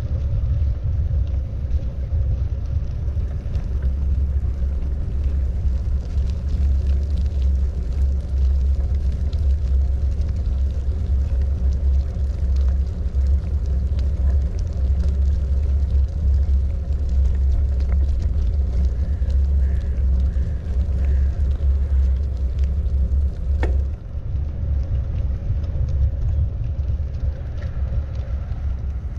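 Steady low rumble of wind buffeting the microphone, with a single sharp click about 24 seconds in.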